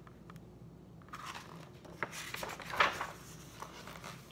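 Paper pages of a picture book being handled and turned: soft rustling with a sharper crackle a little after halfway.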